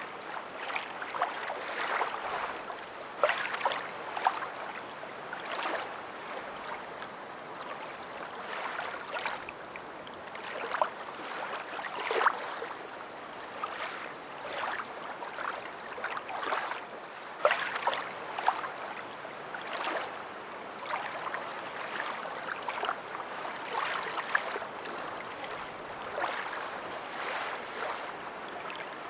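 Water splashing and lapping in irregular small bursts over a steady hiss.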